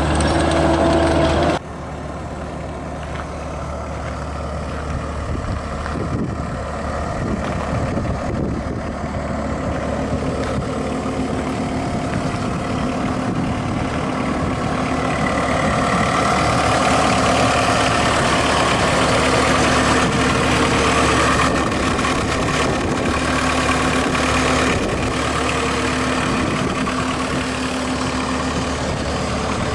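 Cat 257B compact track loader's turbocharged diesel engine running loudly while the machine drives for about the first second and a half, then dropping suddenly to a steady idle.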